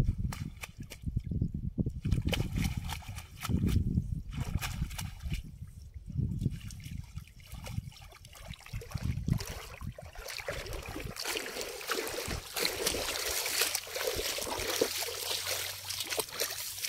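Water splashing and sloshing: heavy, irregular sloshes in the first half, then a steadier trickling and pattering of water through the second half.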